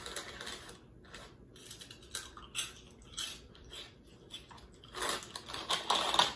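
Crunchy Flamin' Hot Cheetos being taken from their crinkly snack bag and chewed: a run of short crackling crunches, with a louder stretch of crackling near the end.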